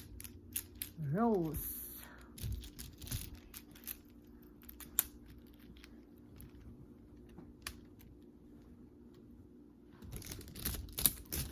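Magnetic building toy pieces clicking and clattering as they are handled and snapped together, with scattered sharp clicks that get busier near the end.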